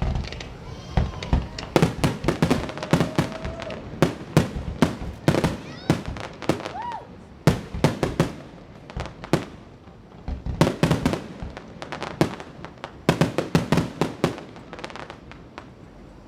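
Fireworks going off: many sharp bangs and crackles at an irregular pace, bunched in quick clusters with short lulls between them.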